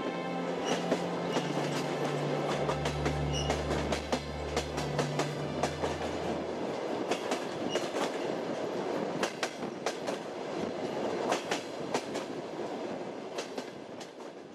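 Passenger train running on rails, heard from inside the carriage: a steady rumble with irregular clicks of the wheels over rail joints. A low steady hum joins about two seconds in and stops around six seconds, and the train sound fades out at the end.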